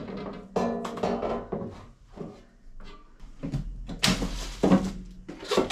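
Cardboard packing being handled and scraped out of an air fryer's plastic basket, with the basket drawer sliding and knocking against its housing about four seconds in, the loudest sound.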